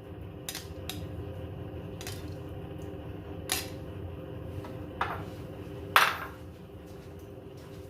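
A few scattered clinks and taps of a utensil against a cooking pot, the loudest about six seconds in, over a steady low hum.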